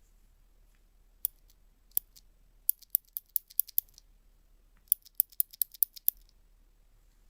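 Sharp, crisp clicks in quick runs of about five a second, with one click about a second in, a pair near two seconds and two runs of about seven clicks each.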